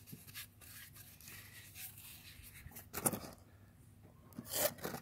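Quiet hand-handling noises as parts are worked on: rubbing and rustling, with a short louder scrape about three seconds in and another near the end.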